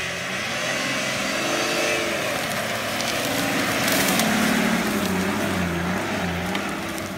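Nissan Patrol 4x4 engine revving up and down as it pushes through tall grass and brush, with crackling of vegetation against the body and mud tyres. It grows louder as the vehicle passes close by about four seconds in, then fades.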